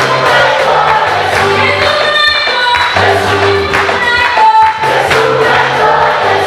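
Choir singing an African gospel song in several-part harmony, over instrumental accompaniment with low sustained notes and a steady beat.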